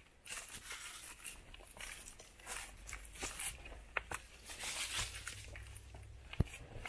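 Footsteps on dry leaf litter and stones, an irregular rustling crunch with each step, and a sharp click near the end.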